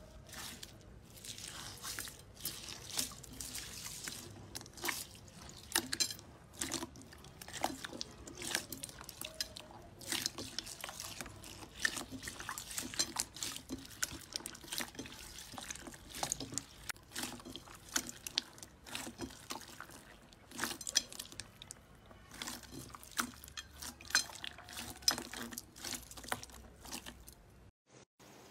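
Hands squishing and kneading clear slime mixed with small beads: wet squelching with many irregular small pops and crackles.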